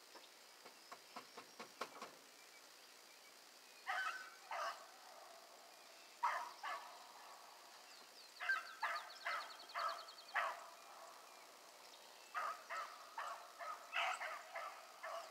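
Hunting hounds barking in bursts of a few quick barks each, the bursts coming closer together toward the end. A few faint clicks come first.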